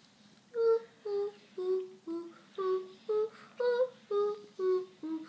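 A child humming a short tune in separate notes, about two a second, the pitch stepping up and down from note to note.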